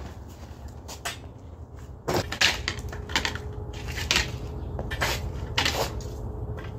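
Knocks and clatter of sled gear being handled on a concrete driveway: skis with upright plastic posts and a wooden crossbar set down and shifted about, a sharp knock every second or so over a steady low rumble.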